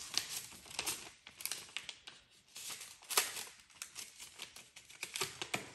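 Paper envelope being folded and handled: irregular crinkling and rustling, loudest about three seconds in.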